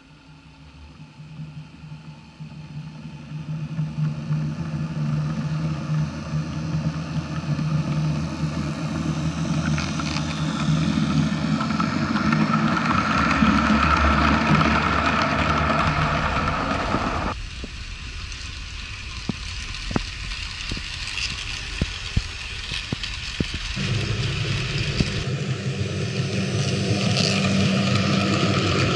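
HO-scale model train (Roco Renfe Class 307 diesel locomotive hauling tank wagons) running on the track. Its motor hums and its wheels rumble, growing louder as it approaches and is loudest as it passes close. Sharp clicks from the wheels over rail joints come through in the quieter stretch later on.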